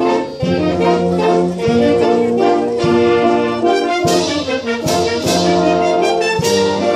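A live brass band playing a tune with held trumpet and trombone notes over a moving bass line, with percussion strikes in the second half.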